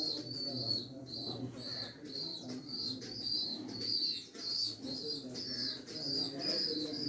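Pigeons cooing in a low, continuous warble, with short high chirps repeating about twice a second over it.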